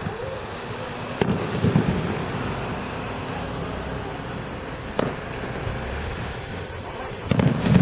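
Aerial fireworks shells bursting: sharp bangs about a second in and again around five seconds, then a louder double crack with a low rolling boom near the end.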